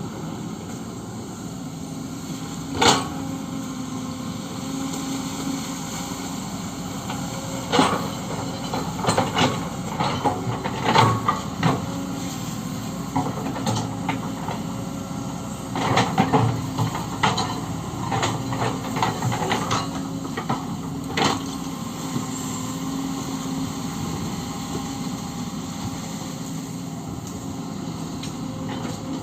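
Kobelco SK-130 hydraulic excavator working, its diesel engine running steadily under intermittent sharp metallic clanks and knocks, heaviest in two clusters about a third and two thirds of the way in.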